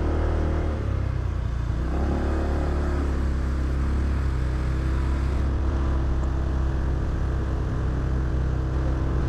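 Engine and road noise of a moving vehicle cruising steadily: a continuous low hum over tyre and wind noise, with the engine note shifting slightly about two seconds in.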